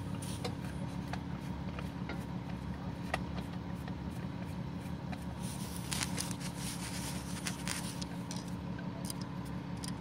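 Small clicks and scrapes of a screwdriver working the screws that hold an HEI distributor rotor, busiest a little past the middle. A steady low mechanical hum runs underneath.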